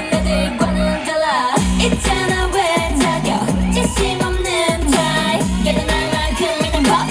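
Live K-pop song with female vocals singing over a dance backing track, with a steady pounding bass beat.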